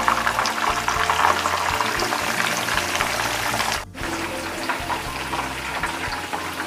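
Whole tilapia deep-frying in hot oil in a pan: steady sizzling and crackling of the oil bubbling around the fish, which briefly cuts out about four seconds in. Faint background music runs underneath.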